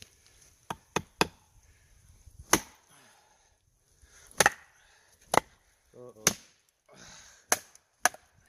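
A wooden baton striking the spine of a knife driven into pine wood, nine or so sharp knocks at uneven intervals as the blade is split down through the wood.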